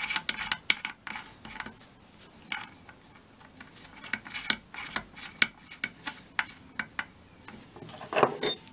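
Small metal clicks and clinks of steel nuts being spun by hand onto a rusted stud, as a second nut is jammed against the first to back the seized stud out. A brief, louder scuffing comes near the end.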